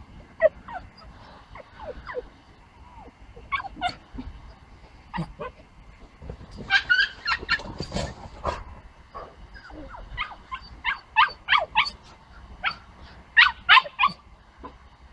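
A dog yipping and barking in play: short, high yips in quick runs, thickest about seven to eight seconds in, again around eleven seconds and once more near the end.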